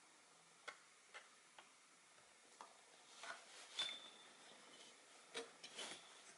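Faint, scattered light clicks and taps from soldering work on a motherboard, with a short cluster of scraping and a brief high squeak about four seconds in.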